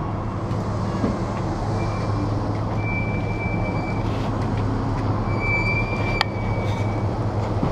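Steady low vehicle rumble. A thin high tone sounds twice, for a second or two each time, and there is one short click near the end.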